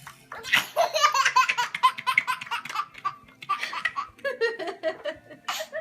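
Baby laughing in a quick run of high-pitched giggles, then more scattered laughs.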